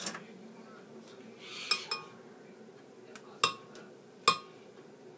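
Chunks of banana dropped by hand into a glass blender jar, each landing with a sharp, ringing clink against the glass, about five times. A brief rustle of banana peel comes just before one of them.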